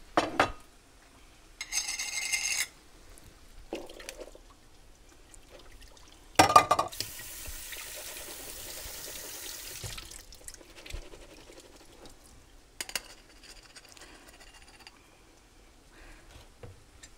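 Canned garbanzo beans being drained and rinsed in a strainer at a kitchen sink: a clatter of can and strainer, then the tap running for about three seconds, with smaller clinks and knocks around it.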